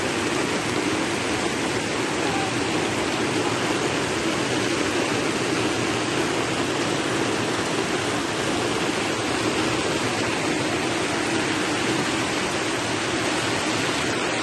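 Muddy floodwater rushing steadily across a road, an even, unbroken roar of flowing water.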